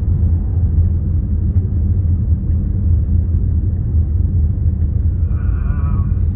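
Steady low rumble of road and engine noise inside a moving car, with a brief high warbling chirp about five seconds in.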